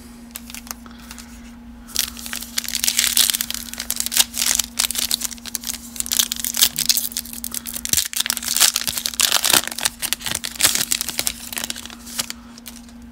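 Foil wrapper of a 2020 Donruss baseball card pack being torn open and crinkled by hand: a dense run of crackling and tearing that starts about two seconds in and stops shortly before the end.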